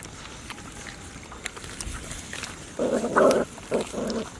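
Puppies eating together from a shared basket, with small chewing clicks, then a few short growls a little under three seconds in as they jostle over the food.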